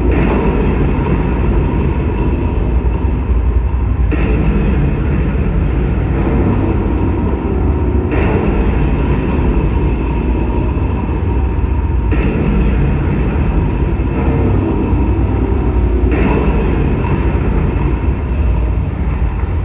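Live dark ambient electronic music: a loud, deep, steady drone, with a higher hissing, grainy layer that cuts in and out about every four seconds.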